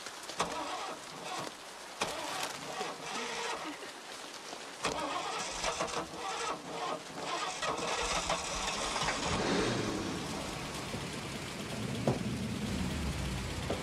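A car engine starting and running under steady rain, with sharp irregular clicks in the first half; a low rumble builds up over the last few seconds.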